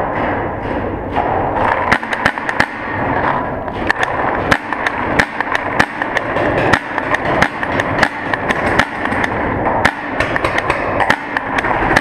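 Paintball markers firing in a rapid, irregular string of sharp cracks and pops, several a second, starting about two seconds in, with paintballs striking nearby cover.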